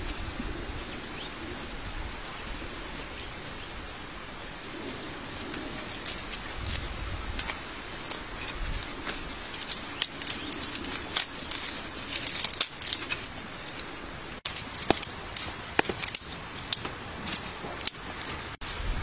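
Rustling and crackling of dry twigs and leaves: a steady rustle, with scattered sharp snaps and crackles in the second half.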